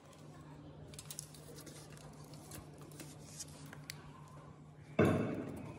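Faint handling of a steel tape measure on a plywood sheet: light ticks and taps over a steady low hum. About five seconds in there is a sudden, louder scrape that fades away.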